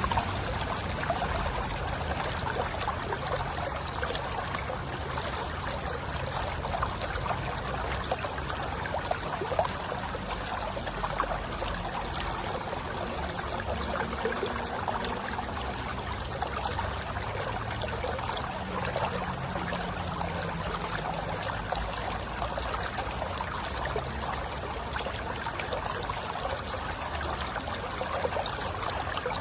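Mountain river flowing and tumbling over rocks: a steady rush of water.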